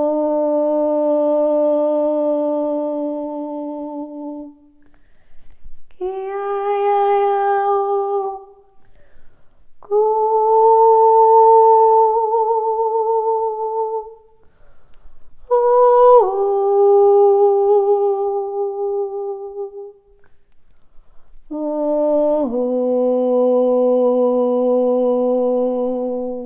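A woman's voice toning long wordless held notes, five in all with short breaths between. One note wavers slightly, and two step down in pitch partway through.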